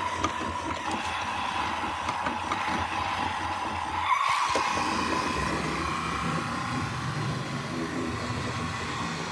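Battery-powered toy trucks running across a wooden floor: a steady high motor whine with a rolling rattle, a little louder about four seconds in.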